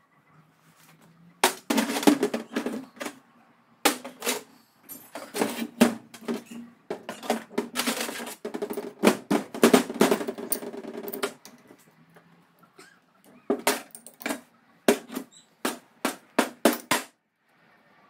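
A steel wrench and bolt hardware on a buggy drive spool's sprocket and brake disc hub: fast metallic clicking and clinking for most of the first ten seconds, then a few separate clicks near the end.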